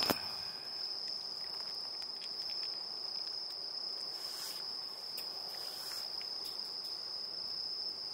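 Continuous high-pitched insect trill held at one steady pitch, with faint clicks of a cat chewing and licking food from a plate close by; a couple of sharper clicks come right at the start.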